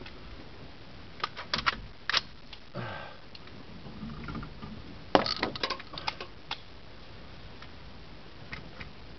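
A scattering of short, sharp clicks and light metallic clinks: a quick few just over a second in, one at about two seconds, the loudest cluster about five seconds in, and two faint ones near the end.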